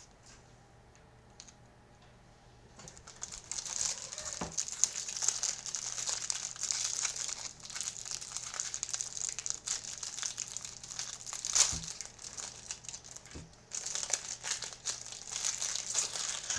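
About three seconds of near quiet, then steady crinkling and tearing of a trading-card hanger box's packaging being opened by hand, with a few soft knocks along the way.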